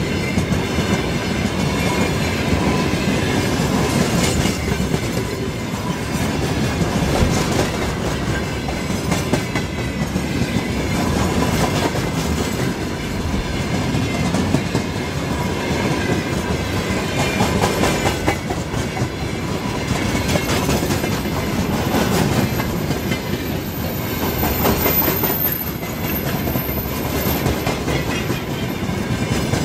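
Freight train of open-top gondola wagons rolling past close by: a steady rumble of steel wheels on rail, with repeated clacks as the wheelsets pass over rail joints.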